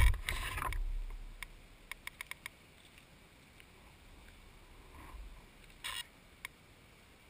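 A thump as the RC helicopter's landing skids are set down on asphalt, dying away within a second. Then it is nearly quiet, with a few faint sharp ticks about two seconds in and a brief rustle near six seconds.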